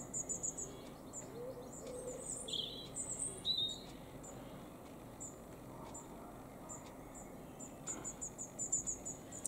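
Small birds chirping: high, thin notes in quick runs of four or five, with a few lower notes about two and a half and three and a half seconds in.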